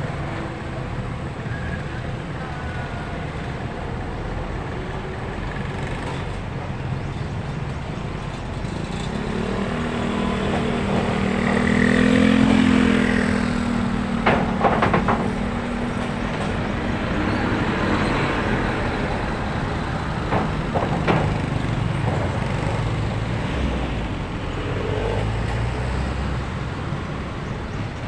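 Roadside traffic, with a heavy tanker truck's diesel engine rising to its loudest as it passes close about halfway through. A few short sharp noises follow as it goes by, and motorcycle tricycles run past as well.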